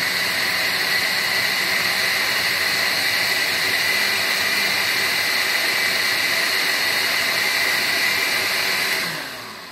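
Osterizer countertop blender running steadily at speed, puréeing boiled pumpkin and carrot in their cooking water. It is switched off about nine seconds in and the motor winds down.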